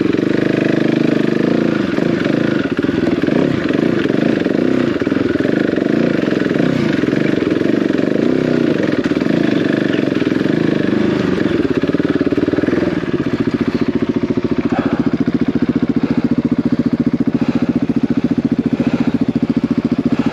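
Single-cylinder trail motorcycle engine running at varying throttle for the first dozen seconds or so, then settling to a steady, even beat for the rest.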